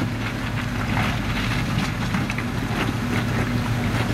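A Jeep Wrangler's engine runs steadily at low revs as it crawls over loose rock, with scattered short crunches and knocks from the tyres on the stones.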